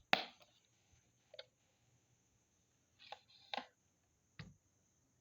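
Handling noise: a few short, sharp clicks and knocks as the speaker and its battery are handled, the loudest right at the start, then single ones about one and a half, three, three and a half and four and a half seconds in.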